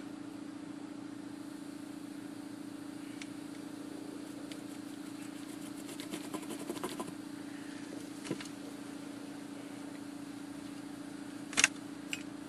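A steady machine hum, with scattered light clicks and taps and a single sharp knock near the end.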